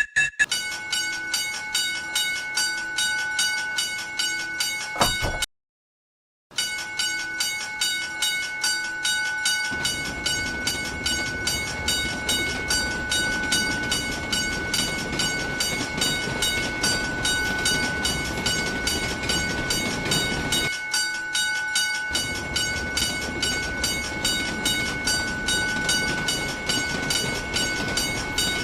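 Japanese level-crossing alarm ringing its repeated "kan-kan" strokes, cutting out for about a second near the start. From about ten seconds in, a passing train's rumble runs under the alarm, dipping briefly and then returning.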